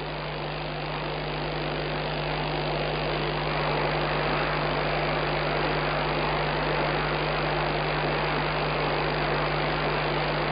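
Steady hiss with a low electrical hum from an open telephone line on a radio call-in broadcast, slowly swelling in level over the first few seconds and then holding steady.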